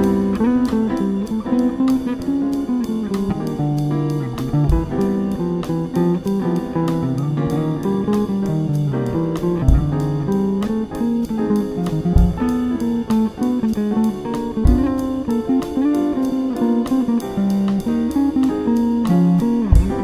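Fender electric bass guitar plucked fingerstyle, playing a walking jazz line with keyboard accompaniment.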